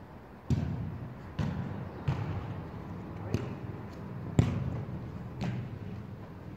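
A football being kicked: about six sharp thuds spread unevenly over a few seconds, each trailing off in the echo of a large hall.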